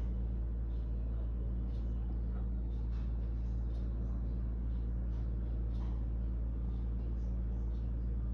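Steady low background hum on an open phone line, with faint scattered ticks and faint voices now and then.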